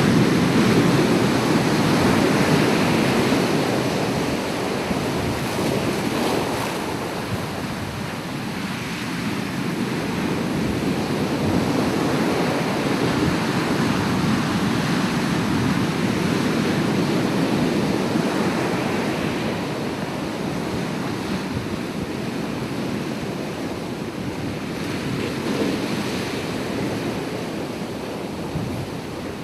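Ocean waves washing onto a shore in slow swells that rise and fall every several seconds, with some wind.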